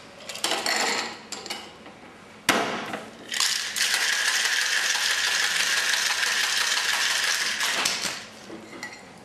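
Boston shaker, a metal tin over a mixing glass, being fitted together and sealed with a sharp knock, then shaken hard for about four seconds with ice rattling steadily inside the tin. A few lighter knocks near the end as the tin is struck to break the seal.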